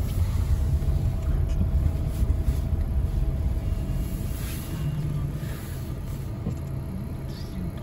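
Low, steady rumble of a car's engine and tyres heard from inside the cabin as the car rolls slowly.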